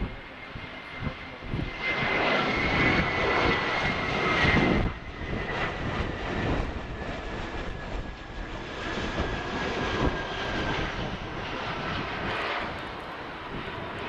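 Airbus A320-214's twin CFM56-5B turbofan engines at approach power as the airliner passes close by on landing. A steady rushing noise with a high whine that slowly falls in pitch, loudest a few seconds in.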